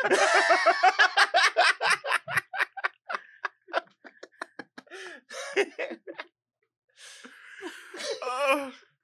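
People laughing hard. A burst of rapid laughter fades over about four seconds, breaks off into a brief silence, then starts up again as breathless, wheezing laughter near the end.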